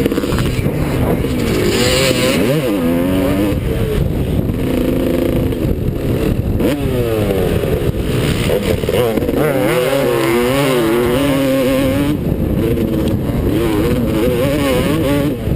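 Motocross dirt bike engine running hard, its pitch climbing and dropping again and again as the throttle is opened and rolled off.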